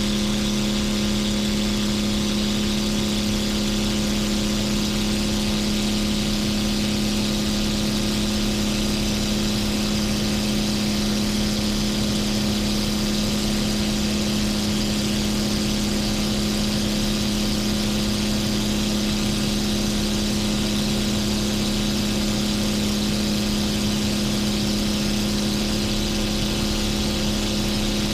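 Titan T-51 Mustang's Suzuki V6 engine with short stack exhausts running at a steady power setting in flight. It makes a constant, unchanging drone throughout.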